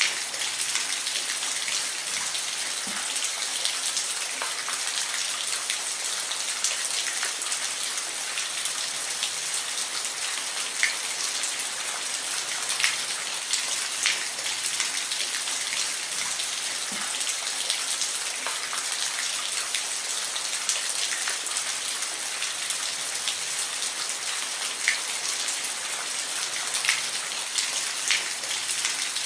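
Steady rain falling, a constant hiss with scattered close drops ticking and splashing on a surface.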